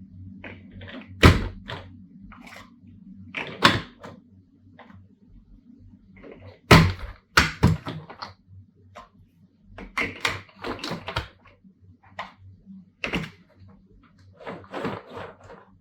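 Plastic toy building blocks clacking and being pressed together: a string of sharp clicks and knocks at irregular intervals, over a low steady hum.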